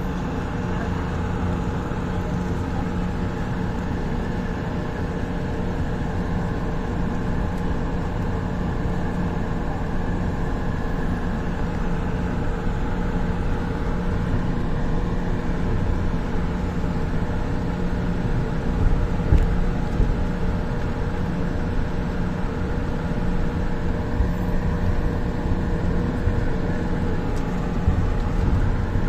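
Light rail train running: a steady rumble of wheels on the rails under a constant electric hum, with a few louder knocks about two-thirds of the way through and again near the end.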